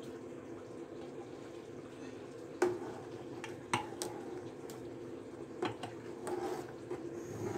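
A metal ladle stirring thick milk kheer in an aluminium saucepan, knocking sharply against the pot about half a dozen times from a few seconds in, over a steady low hum.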